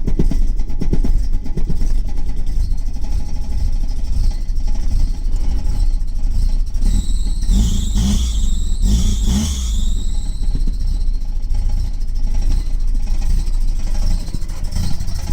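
Nissan 240SX's KA24E 2.4-litre four-cylinder engine running unevenly with a misfire. A high-pitched whine comes in and wavers for a few seconds about halfway through.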